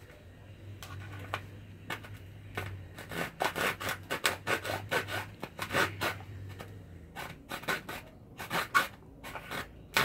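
Small hand saw cutting through the dry, hollow shell of an apple gourd: short, irregular rasping strokes back and forth as the entrance hole for a birdhouse is sawn out.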